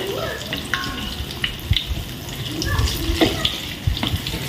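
Banana fritters frying in hot oil, a steady sizzling hiss, with scattered light clicks and knocks of a utensil against the pan.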